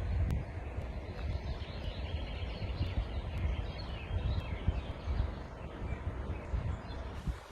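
Outdoor ambience of a low, gusty rumble, with small birds chirping faintly through the middle. Just before the end it switches to the brighter, even rush of flowing river water.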